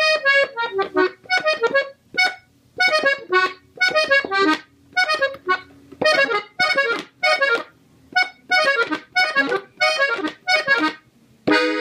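Gabbanelli button accordion in E playing a slow melody on the treble buttons, in short detached notes and quick runs, with a held chord sounding near the end.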